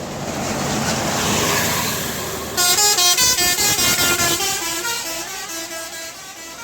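A bus's multi-tone telolet (basuri) air horn plays a quick melody of stepped notes that jump in pitch several times a second. It comes in suddenly about two and a half seconds in, after rising road noise, and fades toward the end.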